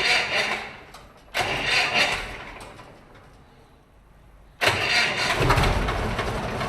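Willys jeep engine being cranked over by its starter in three attempts: two short ones about a second apart, then a longer one from about two-thirds of the way in that is still going at the end. The jeep won't start.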